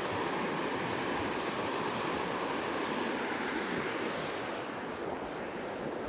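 Shallow creek rushing over rocks, a steady rushing noise that turns a little duller about five seconds in.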